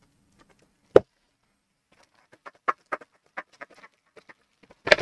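One sharp knock about a second in, then a run of light, irregular crinkling clicks from a plastic bubble mailer being handled.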